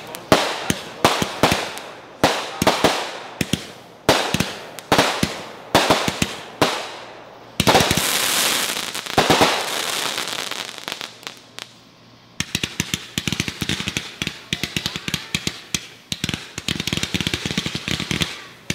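Fireworks going off: sharp bangs about two a second, each fading away, for the first seven seconds or so. Then, nearly eight seconds in, a sudden loud hiss that dies down over about four seconds, followed from about twelve seconds by dense rapid crackling pops.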